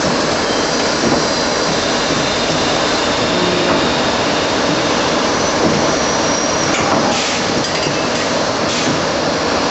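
Traub A25 automatic lathe and its valve-guide loading and ejection automation running through a cycle: a loud, steady machining din, with sharp metallic clinks about seven seconds in and again near the end.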